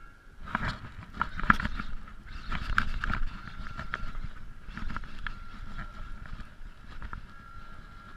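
A spinning reel is cranked fast while a fish pulls on a bent rod. Close jacket-fabric rustling and knocks against the chest-worn camera cover the reeling, loudest in the first three seconds. A thin steady whine comes and goes throughout.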